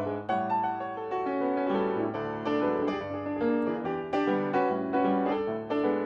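Piano music accompaniment: notes struck in quick succession, with chords underneath.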